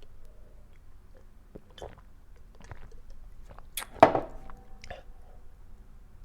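Small wet mouth clicks and swallowing from a person drinking soda, with one louder mouth or breath sound about four seconds in.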